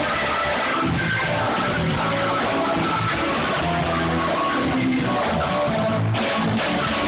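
Live electric blues band playing, guitar to the fore.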